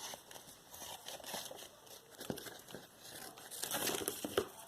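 Paper being handled, rustling and crinkling, with a few light clicks; the handling gets busier near the end.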